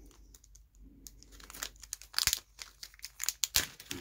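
A small silvery plastic bag crinkling as hands handle it and work it open, in short crackles that start about a second in and grow busier toward the middle.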